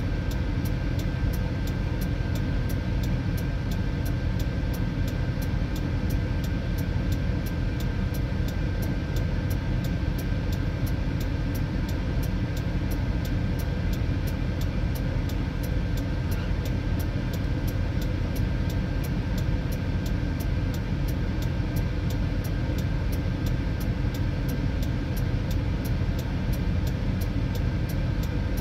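Steady low rumble of an idling truck engine, heard from inside the cab, with a faint steady high whine over it.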